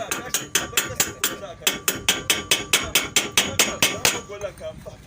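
Hammer rapidly and evenly striking metal, about five or six blows a second with a metallic ring. The blows stop about four seconds in.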